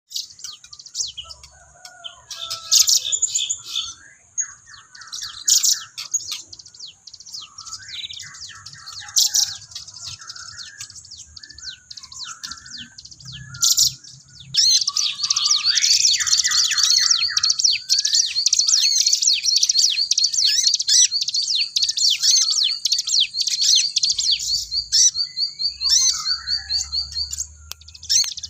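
Sogok ontong, a spiderhunter, singing in full voice: high, quick chirps and twitters, then from about halfway in a long, fast, continuous trill that runs until near the end.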